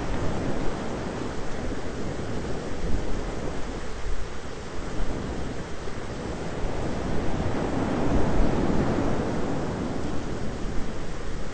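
Thunderstorm ambience: a steady rushing noise of rain and wind, with a low rumble swelling and fading about eight seconds in.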